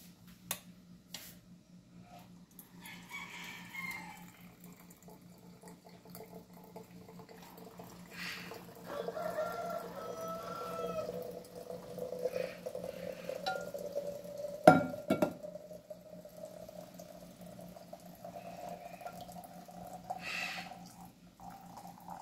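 Hot water being poured slowly over ground coffee in a strainer, trickling and dripping through into a small thermos bottle. A single sharp knock comes about fifteen seconds in.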